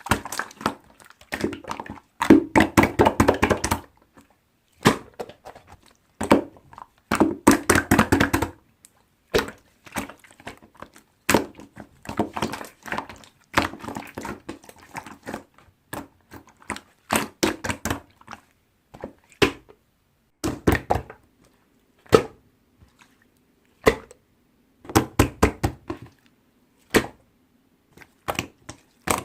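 Slime being squeezed and pressed by hand, making rapid runs of small wet clicks and pops in bursts with short pauses between them.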